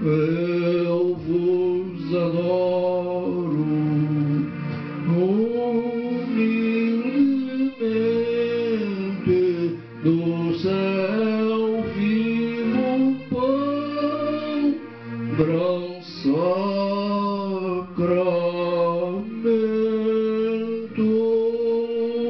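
A man singing a slow Portuguese hymn in sustained, gliding notes over his own electronic keyboard accompaniment of held chords.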